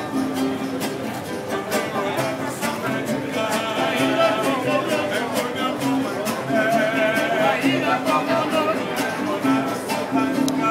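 Live mariachi band playing: strummed acoustic guitars over a steady bass line, with a violin carrying the melody.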